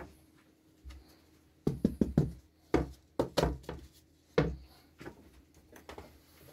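MDF disc and offcut being picked up and handled on a wooden workbench: a series of short knocks and clatters, the loudest cluster in the first half, tapering off toward the end.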